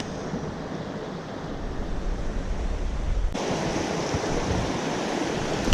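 Rushing mountain-stream water, a steady hiss of noise with wind rumbling on the microphone. About three seconds in it suddenly becomes louder and brighter.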